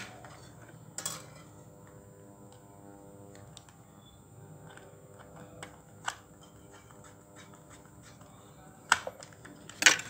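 Small screwdriver driving a screw into the plastic battery cover of a toy RC car, with scattered sharp plastic clicks and knocks as the car body is handled: one about a second in, a pair near the end, and more as the car is turned over. Between them it is quiet, with a faint steady hum.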